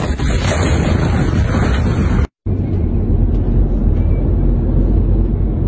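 Loud rushing noise with a few knocks for about two seconds, then a brief break in the sound, then steady road and engine noise heard inside a moving car.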